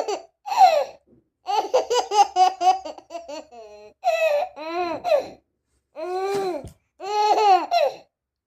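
A baby laughing in separate bursts: a quick run of short chuckles, then several longer squealing laughs whose pitch rises and falls.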